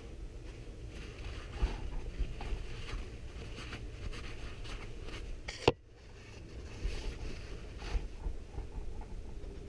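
Cloth rag rubbing and wiping over the metal top of a two-stroke motorcycle cylinder and piston crown, in uneven strokes with small knocks. One sharp click comes just past the middle.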